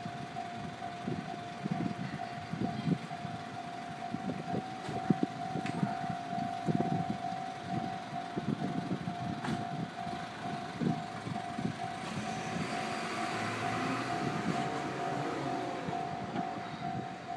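An electronic warning tone sounds with an even pulse at one steady pitch, over irregular low rumbling. About twelve seconds in, the running noise of the approaching JR East E501-series electric train grows louder as it nears the platform.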